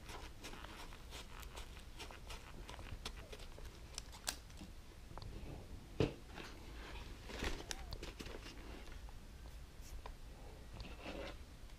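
Faint handling noises of a motorcycle helmet's liner and Velcro pad being pressed and moved: light scattered clicks and rustles, with a single soft knock about six seconds in as the helmet is shifted.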